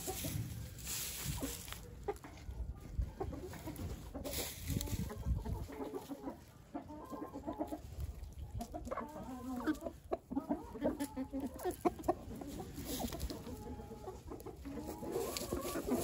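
A flock of hens clucking while they feed, with many short low calls that get busier in the second half.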